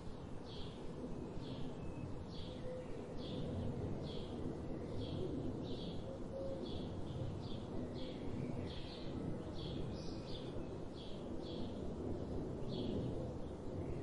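A bird calling with short high chirps repeated steadily, roughly one to two a second, over a steady low rushing background.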